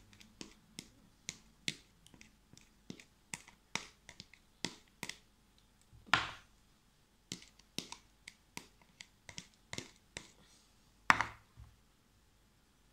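Metal spoon clicking and scraping against a plastic container while stirring slime: a run of sharp, irregular clicks, with two louder, longer strokes about six and eleven seconds in.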